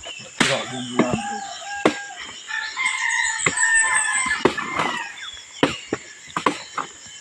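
A machete chopping into a felled oil palm trunk: a series of sharp, irregular strikes. A rooster crows in the middle, a pitched call lasting about two seconds.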